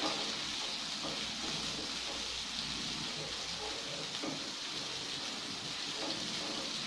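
Sliced shallots and bird's eye chilies frying in hot oil in a pan: a steady, even sizzle.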